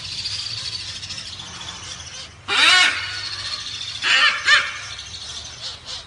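A nestling bird giving shrill, squealing begging calls: one burst about two and a half seconds in and a double call around four seconds, each call arching up and down in pitch. A steady high hiss runs underneath in the first two seconds.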